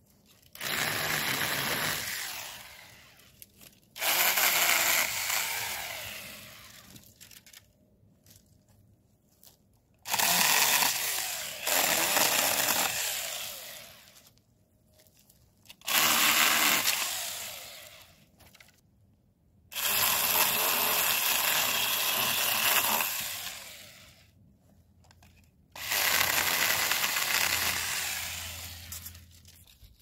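Saker cordless mini chainsaw cutting through tree branches in six short bursts. Each cut starts sharply and dies away over a second or two.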